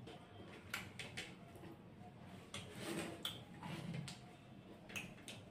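Faint eating sounds: a scattering of soft clicks and smacks from chewing and from hands working rice and chicken curry on plates and in steel bowls.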